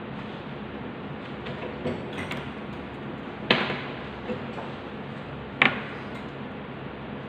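Sharp taps of a handheld quilling tool being put down on and picked up from the tabletop, twice, with a few fainter handling clicks as the paper quilling is worked, over a steady hiss.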